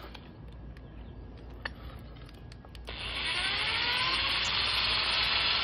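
A few light clicks, then about three seconds in a power drill starts running in reverse with its pitch dropping, driving a left-hand bit into a snapped bolt to back it out.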